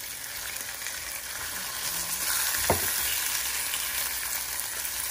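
Bacon strips sizzling in a hot frying pan while tongs move them around, the sizzle swelling a little about two seconds in. A single sharp knock, a little over halfway through.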